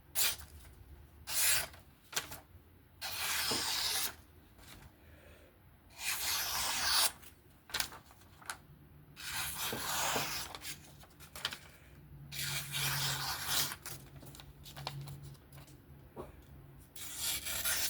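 A freshly sharpened M390 folding knife blade is drawn in long rubbing strokes, about six of them, each lasting around a second, with short pauses in between.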